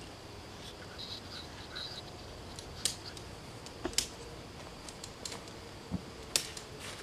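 Plastic tent clips snapping onto aluminium tent poles: about half a dozen sharp clicks, scattered from around three seconds in, the loudest about four and six and a half seconds in.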